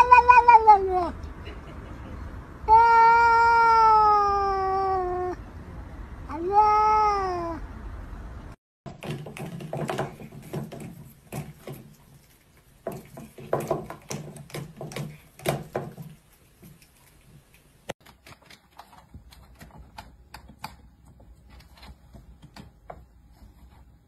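A domestic cat meowing loudly three times, the middle call long and slowly falling in pitch. After that come quieter irregular clicking and tapping of plastic as a cat chews on electric-toothbrush heads.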